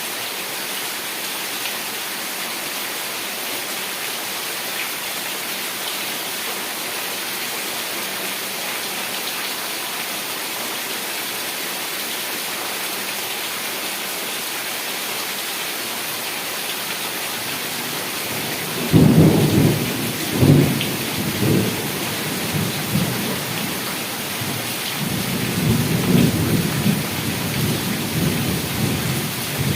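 Heavy rain pouring steadily. About two-thirds of the way through, thunder breaks in with two sharp cracks followed by rolling rumbles that swell again near the end.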